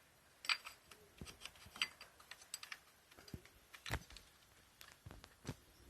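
Scattered light metallic clicks and taps of engine parts being handled and turned on a shaft while hunting for the position where they engage, with the loudest clicks about half a second in and about four seconds in.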